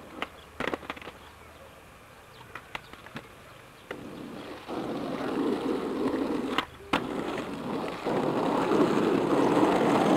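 Skateboard wheels rolling on asphalt, a steady grinding rumble that starts about halfway in, breaks off with a couple of sharp clacks, then rolls on louder near the end. A few light clicks come before the roll.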